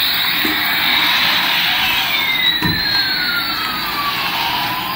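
Toy Airbus A380's electronic jet-engine sound effect: a steady hiss with a high whine that slides down in pitch and starts to rise again near the end.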